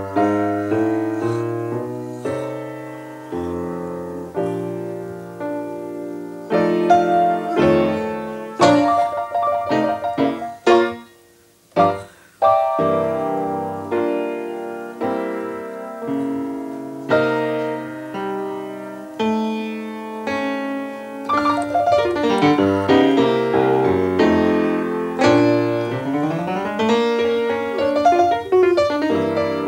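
Jazz piano on a grand piano, chords and runs with a short break about eleven seconds in, then quick rising runs up the keyboard near the end.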